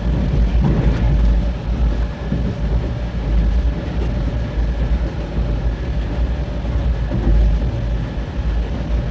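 Passenger train running at speed, heard from inside an LHB coach: a steady low rumble of wheels on the rails with rushing air noise and a faint steady hum.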